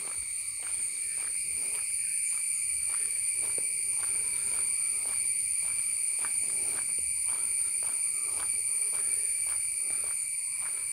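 Insects droning steadily at a few high pitches, unbroken throughout. Faint footsteps of someone walking beneath it.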